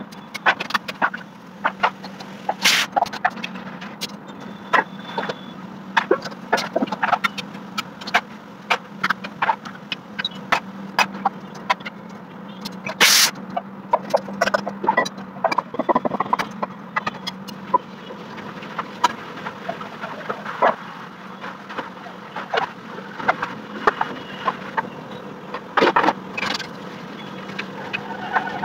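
Steel pots, plates, bowls and utensils clinking and clattering as they are handled at a kitchen counter, in irregular knocks with a few louder clanks, over a steady low hum.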